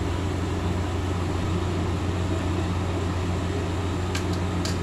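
Steady motor hum from a running machine, unchanging throughout, with two light clicks near the end.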